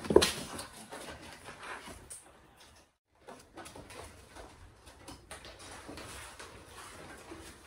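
A cat paws a crumpled tissue-paper ball across a wood floor, making light scattered taps and paper rustle. A short, loud pitched cry comes at the very start.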